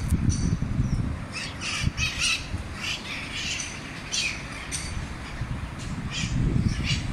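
A flock of green parrots calling: many short, quick calls, some overlapping, over a low rumble.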